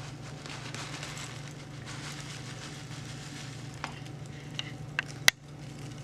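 Steady low hum and faint hiss, with a few light clicks of a kitchen utensil against a dish in the second half, the sharpest about five seconds in.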